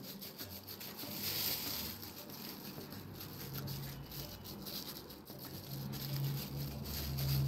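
Plastic fridge bag crinkling and raw minced meat squishing as fingers press a köfte into a bag-lined bowl, in small scattered rustles and clicks. A low hum comes in partway through.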